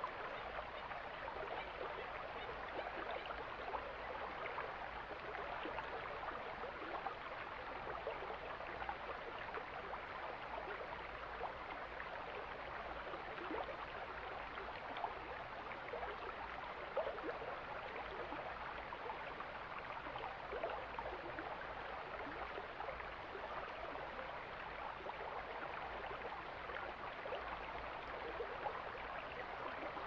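Mountain stream flowing: a steady rush of running water with small gurgles.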